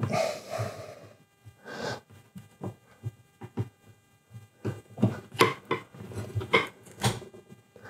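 Steel scraper worked under melamine sheeting glued to particle board, giving irregular scraping strokes and sharp clicks as the laminate is prised up. The clicks come thicker in the second half.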